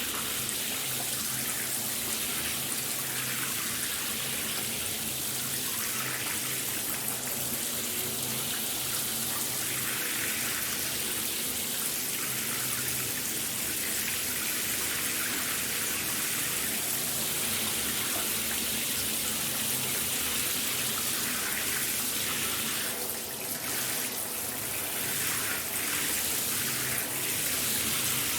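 Shower running steadily, water spraying and splattering, with a brief dip in level about 23 seconds in.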